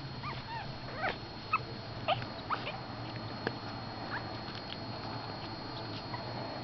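Four-week-old Pekingese puppies whimpering: short, high-pitched squeaks that slide up or down in pitch, several close together in the first couple of seconds, then fainter and fewer.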